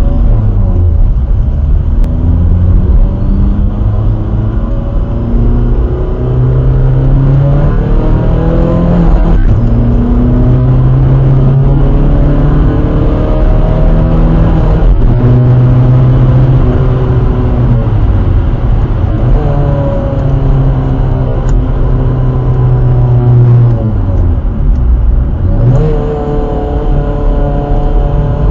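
Skoda Fabia vRS engine under hard acceleration on track, heard from inside the cabin. The pitch climbs steadily and drops back at each gear change. About 24 seconds in the pitch falls as the car slows for a corner, then it climbs sharply again.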